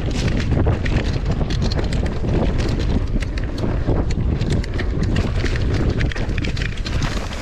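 Wind buffeting the camera microphone of a mountain bike descending a rough trail at speed, with the bike and its tyres rattling and knocking over bumps in quick, irregular clatters.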